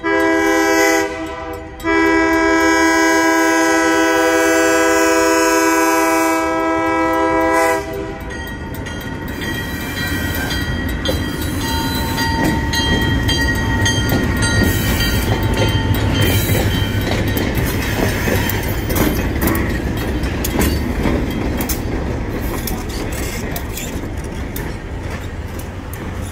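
Alco C424 diesel locomotive's air horn sounding a short blast and then a long one of about six seconds, ending its grade-crossing signal. Then the locomotive's engine and the train rumble past, wheels clattering over the crossing.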